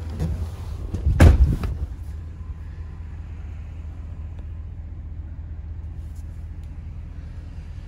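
Ford 6.2-litre V8 of a 2011 F-250 idling, a steady low rumble heard from inside the cab. A loud thump about a second in.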